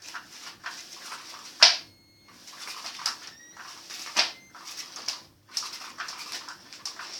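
Cat toy being played with by a cat: irregular scratchy rustling with short gaps, and two sharper, louder swishes.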